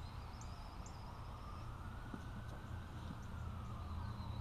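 Faint 1/10-scale RC buggies and stadium trucks running on a dirt track: a hiss that swells and fades over a few seconds above a steady low rumble, with short high chirps now and then.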